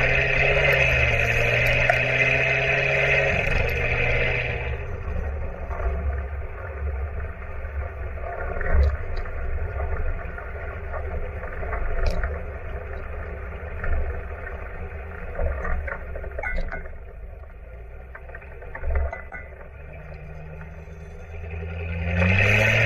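Supercharged Corvette C7 6.2-litre V8 exhaust, heard right at the tailpipes while driving. It is loud under power for the first few seconds, then eases to a quieter cruise with wind and road noise and a few sharp clicks. The revs rise again near the end.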